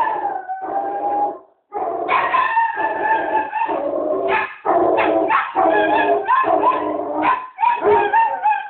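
A basset hound and a chihuahua barking and howling, a near-continuous run of drawn-out, pitched barks with short breaks between them.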